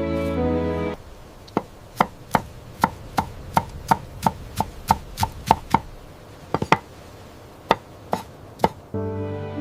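Kitchen knife chopping on a cutting board: a steady run of sharp strokes about three a second, then a few slower, spaced strokes. Soft music plays just before the chopping starts and returns as it ends.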